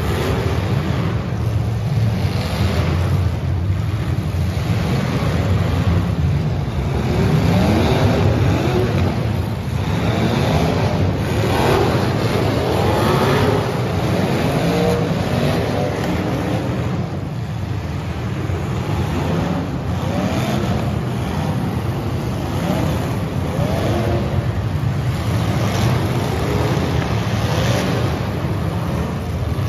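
Engines of several full-size demolition derby cars running and revving hard together, pitch repeatedly rising and falling, with occasional metal crunches as the cars ram each other.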